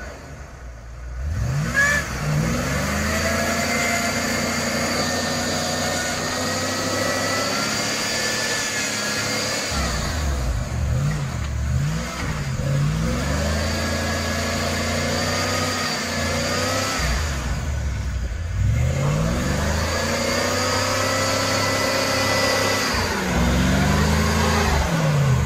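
An old Ford pickup's engine catches about two seconds in and is revved up and down over and over, its pitch rising and falling in long sweeps. It is the first start after the truck has sat dead, and it is revved while still cold.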